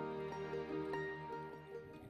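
Soft background music fading out.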